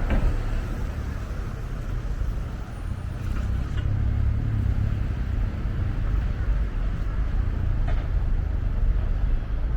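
Steady low rumble of outdoor city ambience, with a few faint ticks.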